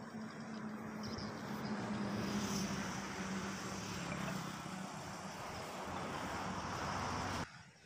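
Road traffic on a highway, motorbikes and cars going by, with a steady low engine hum underneath. It swells about two seconds in as vehicles pass and cuts off abruptly near the end.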